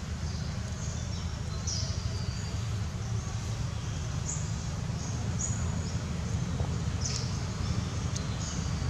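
Outdoor background sound: a steady low rumble with a handful of short, high bird-like chirps, one every second or two.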